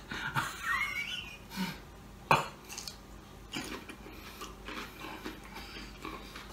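A person biting and chewing a crisp cucumber spear: a sharp crack of a bite about two seconds in, then a run of short crunching chews. Just before the bite, a short rising cry at the heat of spicy food.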